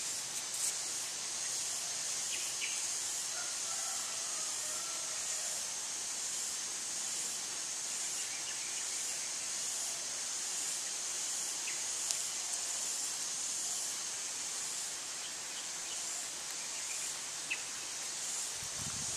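Steady high-pitched outdoor hiss with a faint pulsing to it, a few faint short chirps, and a brief soft low thump near the end.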